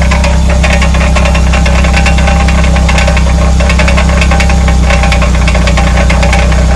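Rear wheel hub rattling: a fast, irregular clatter of sharp clicks over the steady low drone of the running vehicle.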